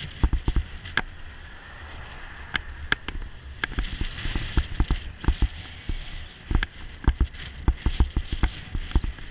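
Irregular rattling knocks from a riding camera's mount jolting over the paved path, several a second, over a low road rumble and wind. A motorcycle passes alongside about four seconds in.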